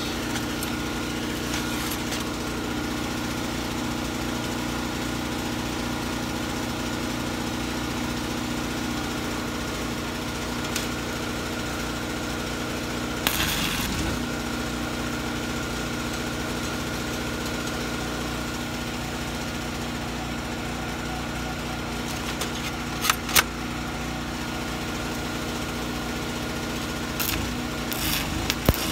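Steady mechanical hum like a small engine running, with a stick-welding arc on an E7018 rod struck and crackling in short spells: about halfway through, again around two-thirds in, and near the end.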